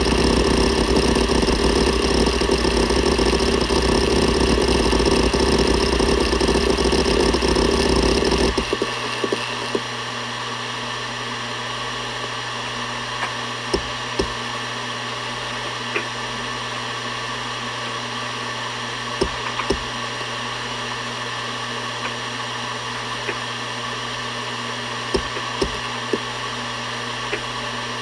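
Seagate Barracuda ES.2 ST31000340NS 7200 rpm hard drive: a loud, dense, continuous working noise stops suddenly about eight seconds in. The spinning platters' steady hum and whine remain, with scattered single seek clicks from the heads.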